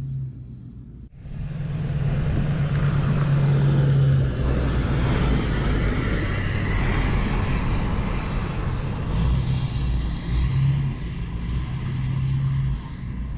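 Pickup truck towing an enclosed cargo trailer driving slowly through snow: the engine runs with a steady low hum under the noise of tyres on snow. The sound dips briefly about a second in, then swells as the rig passes and eases near the end.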